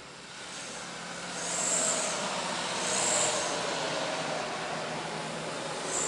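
A heavy road vehicle passing close by. Its running noise swells about a second and a half in and stays up, with two short high hisses near the start of the swell.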